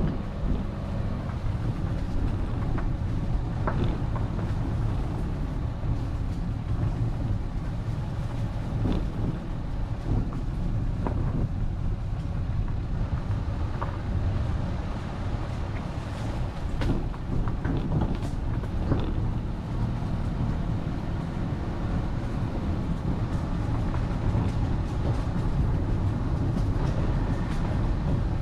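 A vehicle driving along a forest road: a steady low rumble of engine and tyres, with scattered short knocks and clicks.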